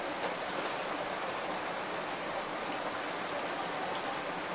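Steady hiss of water, even and unbroken.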